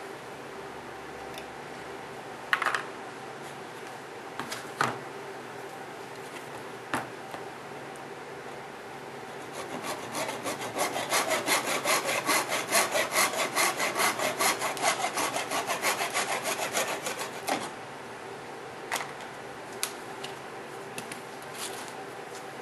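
Handsaw cutting through a wooden nutcracker: quick back-and-forth strokes at about three a second, starting about ten seconds in and lasting some eight seconds. A few scattered knocks of wood and tools being handled come before and after.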